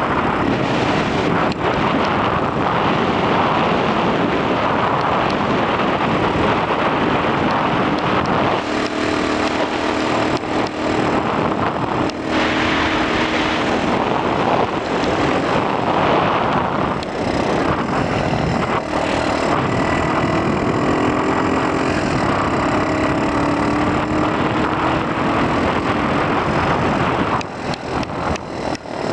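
X18 super pocket bike's small two-stroke engine running under way, its pitch rising and falling as the throttle opens and eases off, with wind noise on the helmet-mounted microphone. Near the end the engine note drops and the level turns uneven.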